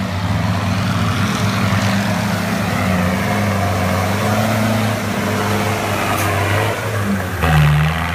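Off-road buggy's engine running hard under load as it drives through a deep mud pit, its pitch wavering slightly, with a sudden change in engine note about seven and a half seconds in.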